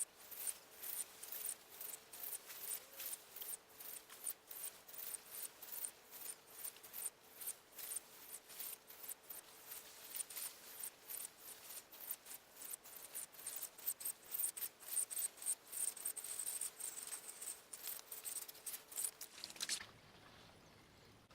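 Fishing reel clicking rapidly and regularly, a ratchet-like run of small sharp clicks, stopping near the end.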